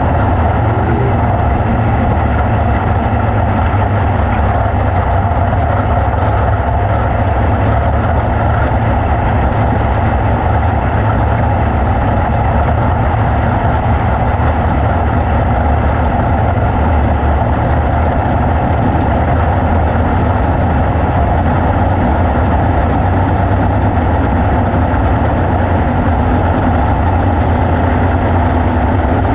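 410 sprint car's methanol-burning V8 running steadily at a low pace, heard from the cockpit, with the engines of the other sprint cars around it rolling along in formation on the pace laps.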